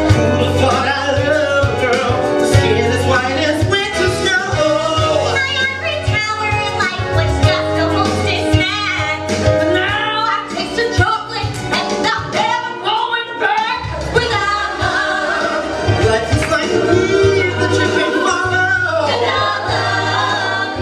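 Musical-theatre song: voices singing over a band with a steady bass beat.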